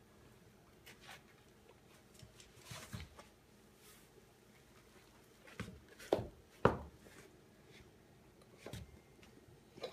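Oversized men's leather dress shoes knocking and scuffing on a rug-covered wooden floor under a toddler's shuffling steps: scattered irregular thumps, the two loudest close together a little past the middle.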